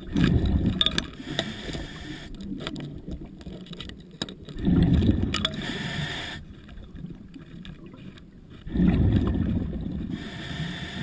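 Scuba diver breathing underwater through a regulator: three bursts of exhaled bubbles about four seconds apart, with quieter stretches between.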